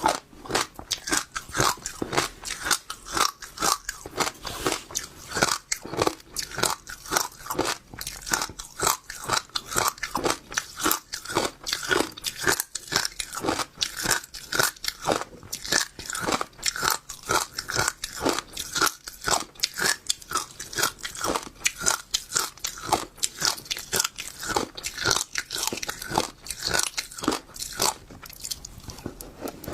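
Passion fruit seeds crunched between the teeth close to the microphone: a steady run of crisp cracks, about three a second.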